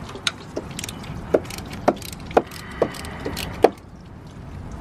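Sharp metallic clicks of a hand wrench turning and loosening a cast-iron engine block drain plug, about one click every half second, stopping near the end.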